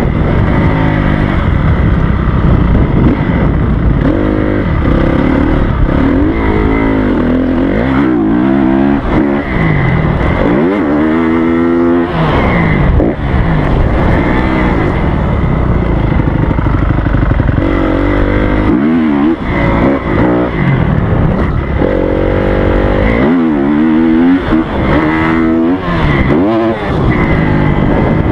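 A Honda CRF250R's four-stroke single-cylinder engine being ridden hard on a motocross track, revving up and dropping back over and over as the throttle opens and closes.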